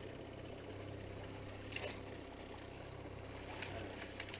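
Boat engine running steadily at trolling speed, a low drone. A short rattle of clicks comes just under two seconds in, with single clicks near the end.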